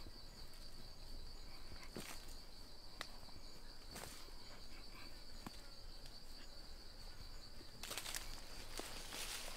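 Insects trilling steadily and high, with a few short scrapes and clicks of sandy soil being scooped out of a hole by hand, and a longer rush of scraping soil near the end.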